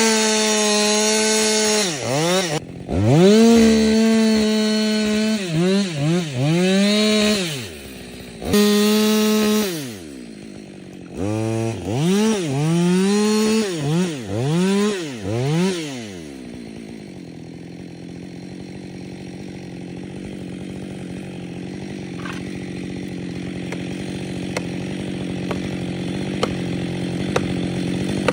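Two-stroke chainsaw revved hard again and again, its pitch sweeping up to full throttle and dropping back many times over about the first sixteen seconds. It then settles into a steady, quieter running note.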